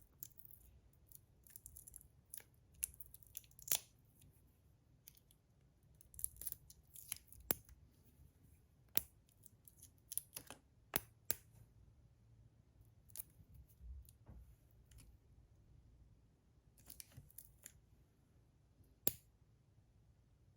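Faint, irregular clicks and short scrapes of small magnets and 3D-printed plastic slider parts being handled and fitted together, with a few sharper clicks scattered through.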